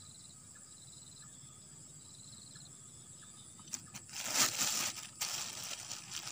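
Thin plastic bag crinkling and rustling as a hand drops a small fish into it and handles the catch, beginning about three and a half seconds in, in two loud spells. Faint insect chirping repeats steadily underneath.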